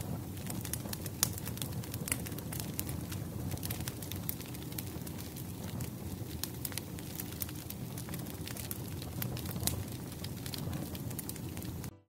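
Crackling log fire: a steady low rumble with frequent sharp pops and snaps. It cuts off suddenly near the end.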